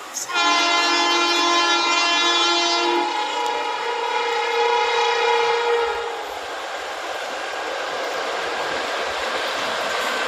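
WCAM-3 electric locomotive sounding a hoarse, 'sore throat' honk of two tones together: the lower tone stops about three seconds in and the higher one holds to about six seconds. Then comes the steady rush and clatter of the train passing at over 90 km/h.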